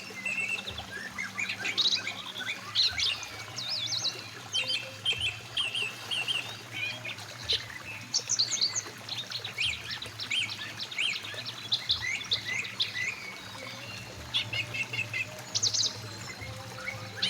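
Several songbirds chirping and calling in quick, overlapping notes throughout, over a steady low hum.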